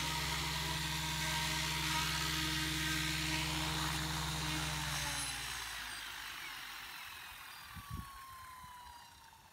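XL Power 550 RC helicopter spinning down after landing: a steady whirring hum from the rotor head fades away about five to six seconds in. A thin falling whine follows as the blades coast slower.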